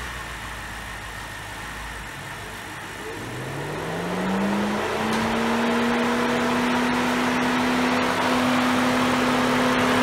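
2007 BMW X5 4.8 idling just after start-up while its electric radiator cooling fan spins up: about three seconds in, a whine climbs in pitch over a couple of seconds, then holds steady and louder as the fan runs on high. The fan coming on high is the symptom that goes with the car's P0128 thermostat code, which is taken for a faulty, leaking thermostat.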